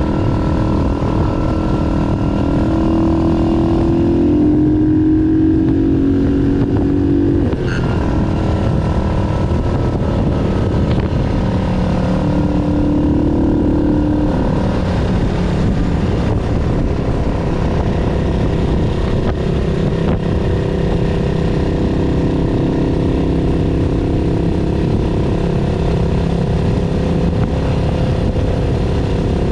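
Yamaha SR400's single-cylinder engine running on the road, its pitch shifting up and down with the throttle, with a brief break in the engine note about seven and a half seconds in.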